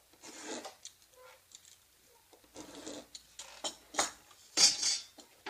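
Razor blade slicing through paper-faced foam board along a metal ruler: a series of short scratchy cutting strokes, the loudest near the end.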